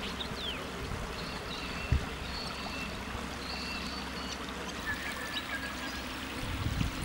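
Shallow floodwater running steadily across a road and spilling over the edge of the bitumen, a continuous trickling rush. Faint high whistles sound through it, and there is a single brief thump about two seconds in.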